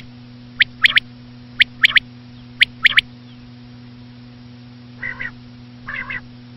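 Common quail singing its three-note 'wet-my-lips' call three times in quick succession, one phrase about a second. After a pause, two quieter, raspier double calls follow.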